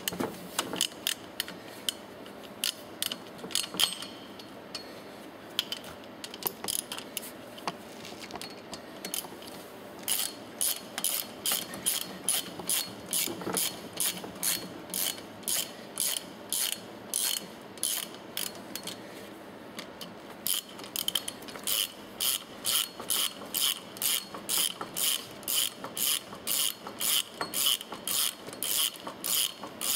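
Ratchet wrench clicking as the air-chamber bolts of a piston pump are tightened, one short run of clicks per swing of the handle. The swings are scattered at first, then come in a steady rhythm of about two a second, with a brief pause about twenty seconds in.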